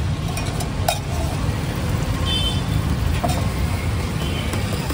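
Steady roadside traffic rumble, with a couple of sharp metal clinks of a spatula on an iron griddle, about a second in and again past the middle.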